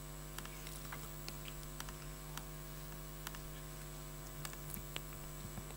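Steady electrical mains hum, with faint, irregular clicks of a laptop's keys and trackpad being worked.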